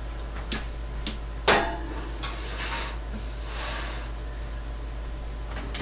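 An oven being loaded with a turkey breast in a pan: a few clicks and a sharp clunk about a second and a half in, then two short stretches of scraping noise and a couple more clicks, over a steady low hum.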